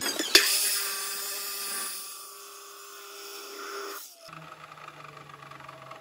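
Maktec abrasive cut-off saw (chop saw) cutting through square steel tubing: the motor's steady whine under the loud, harsh grinding of the abrasive disc through metal. It stops abruptly about four seconds in, leaving a faint low hum.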